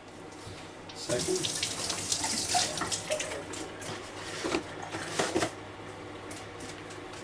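Watery sloshing and splashing in a plastic bucket of thin, runny self-levelling compound mix, lasting about four seconds and dying down near the end.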